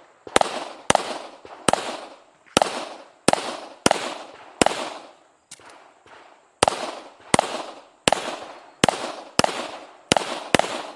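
A Rock Island Armory Pro Ultra Match .40 S&W pistol fires a string of about fifteen shots, roughly one to two a second, with major-power loads. Each shot rings off with a short echo.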